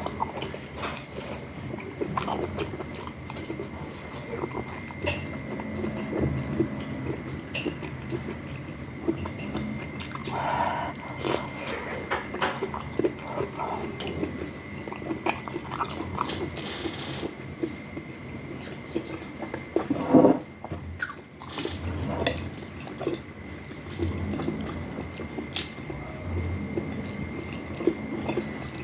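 Close-up mukbang eating sounds from rice noodle soup with meatballs: wet slurping and chewing with many small clicks. The loudest moment comes about twenty seconds in. A faint steady high tone sits in the background.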